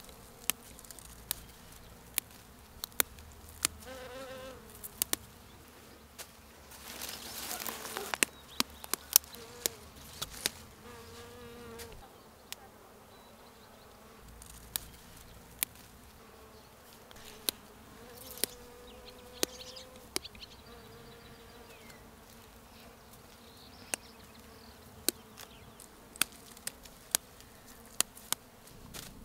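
Flying insects buzzing as they pass close by, the buzz rising and falling in pitch for a second or two at a time, over sharp little snaps scattered throughout as dandelion flower heads are picked by hand.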